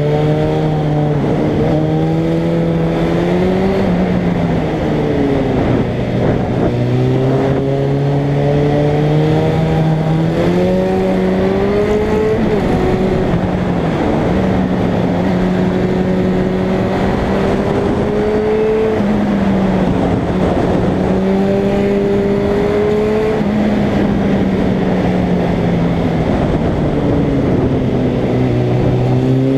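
1998 Suzuki Bandit's inline-four engine heard on board while riding, its note climbing and falling with the throttle through the bends, with a couple of brief breaks where the pitch drops. Wind rushes over the microphone.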